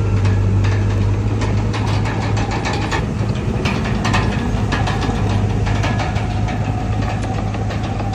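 Diesel engine of a Komatsu D31PX crawler bulldozer running steadily, with frequent short metallic clanks and rattles over it.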